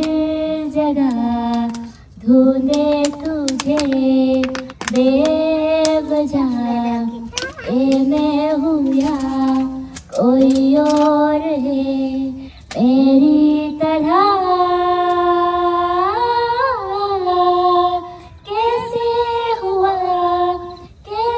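A girl singing solo into a handheld microphone with no accompaniment. She sings phrases of a couple of seconds with short breath pauses between them, and in the second half the notes climb higher and are held longer.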